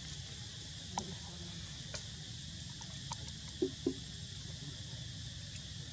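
Steady, high-pitched insect chorus, with a few faint clicks and two short, louder sounds about three and a half seconds in.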